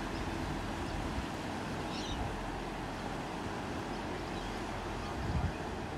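Steady rushing outdoor noise of wind buffeting the microphone, with low gusty rumbles, likely mixed with water.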